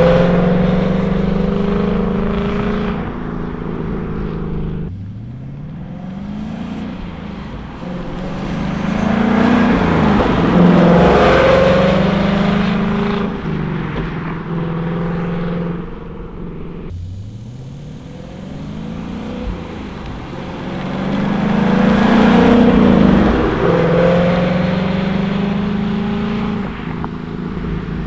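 Ford Mustang 5.0 Coyote V8 running through a combined H-pipe and X-pipe resonator delete, accelerating hard twice. Each time the engine note rises, then holds while getting louder and peaks before falling away.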